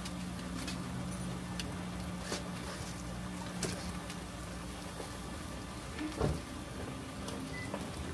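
Light clicks and taps as yakitori skewers are handled and dipped in sauce at a stall grill, over a steady low hum, with one louder knock about six seconds in.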